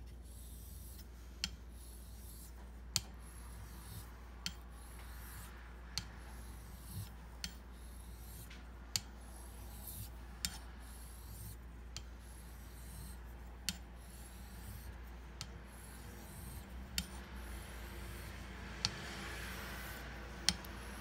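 Greaves wedge straight razor being honed on a 1.5K whetstone: a soft scraping rasp of the blade stroking across the stone, with a sharp click about every second and a half as the razor is turned over on its spine.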